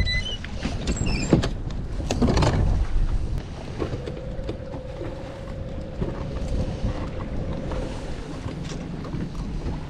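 Wind on the microphone and water slapping a bass boat's hull, with two sharp knocks in the first few seconds. In the middle the bow-mounted electric trolling motor runs with a steady whine for about four seconds, moving the boat to the next brush pile.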